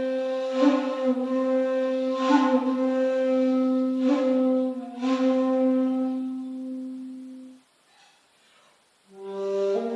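A handmade 2.8 jinashi shakuhachi plays a long, breathy low note of a honkyoku, broken by a few sharp accents. The note fades out past halfway. After a short pause, a new lower note begins near the end and slides up.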